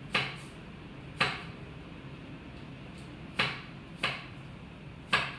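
Five sharp knocks or taps at irregular intervals, each dying away quickly, over a steady low background noise.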